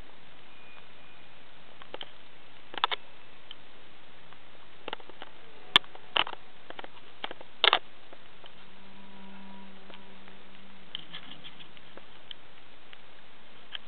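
Steady hiss with a scattering of short clicks and taps, the loudest about six and eight seconds in, and a faint low hum in the second half.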